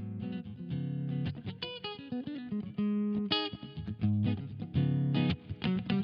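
Intro music: a guitar-led track with plucked notes over a steady bass line.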